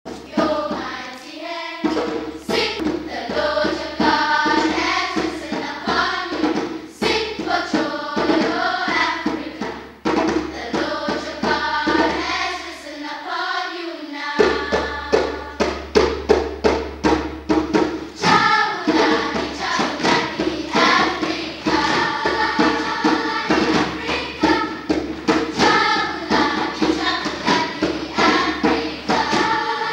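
Children's choir singing in parts, accompanied by a hand drum beaten in a steady rhythm. The drumming grows busier about halfway through.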